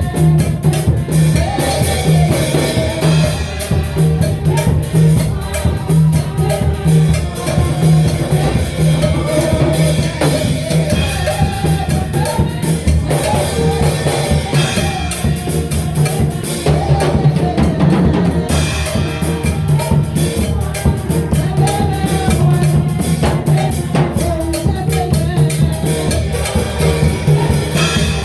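Gospel worship music with a steady drum-kit beat and a strong bass line under a melody.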